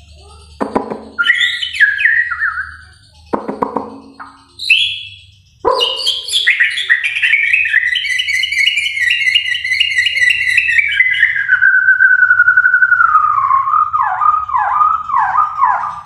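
White-rumped shama (Bornean murai batu) singing: a couple of harsh notes and short whistled phrases, then from about six seconds in one long, unbroken run of rapid trilled notes that drops lower near the end into a string of repeated down-slurred whistles.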